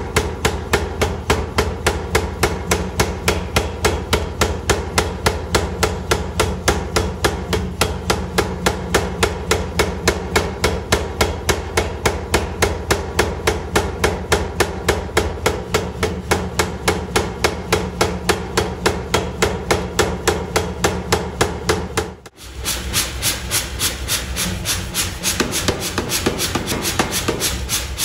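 Power hammer striking red-hot steel at an even rhythm of about three blows a second, over the steady hum of its motor. After a brief break about 22 seconds in, lighter, quicker hammer strikes on the hot steel continue.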